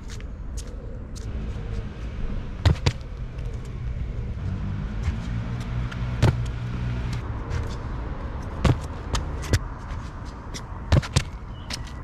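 Steady city traffic rumble with a vehicle engine passing in the middle. About seven sharp knocks cut through it, some in quick pairs, and these are the loudest sounds.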